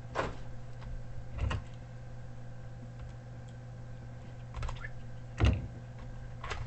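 About four light, scattered clicks and taps over a steady low hum, the loudest about five and a half seconds in.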